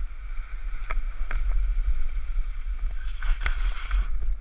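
Skis sliding and scraping over snow during a downhill run, with wind buffeting the GoPro's microphone as a constant low rumble. The scraping swells about three seconds in, and there are a few sharp clicks.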